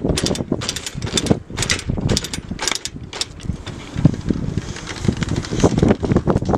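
Casket lowering device being worked by hand over an open grave: an irregular run of metallic clicks and rattles from its crank and drums, thinning out after about three seconds, with wind buffeting the microphone.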